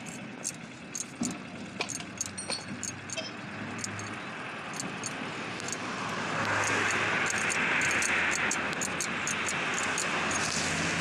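Steel jack handle clicking and clinking in the socket of a hydraulic bottle jack as it is worked under the front axle. Steady traffic noise swells about six seconds in.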